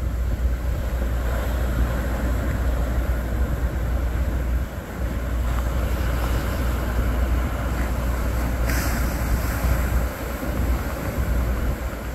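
Ocean surf breaking and washing, under a heavy low rumble of wind buffeting the microphone. A short, sharper hiss comes about nine seconds in.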